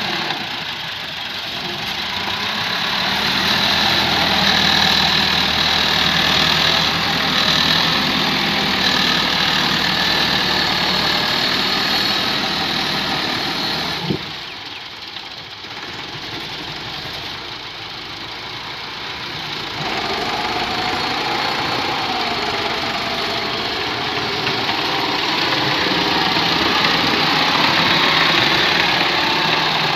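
Massey Ferguson 385 tractor's four-cylinder diesel engine running steadily while the tractor pushes sand with its front blade. About halfway there is a short click, and the engine sound is quieter for several seconds before returning to full level.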